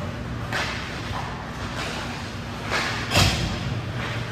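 Ice hockey play: skate blades scraping on the ice a few times, with a thud about three seconds in.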